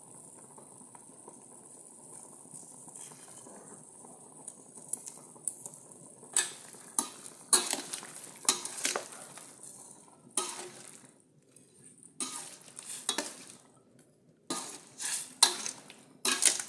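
A pan of tofu simmering in a spiced broth with a steady hiss, then from about six seconds in a cooking spoon clinking and scraping against the pan again and again as the pot is stirred.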